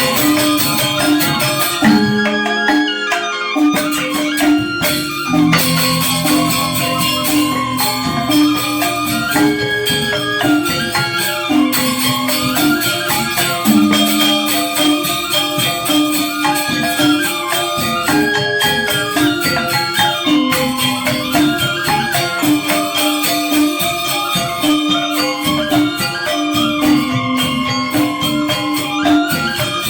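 Balinese gamelan angklung playing a continuous piece: four-tone reong gong-chimes and metallophones, with bamboo grantangan, in quick interlocking notes over a repeating melody.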